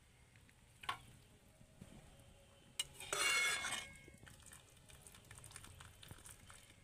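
Metal spoon clinking and scraping against a stainless-steel plate as boondi is spooned onto it: a light clink about a second in, then a louder scrape a little after three seconds.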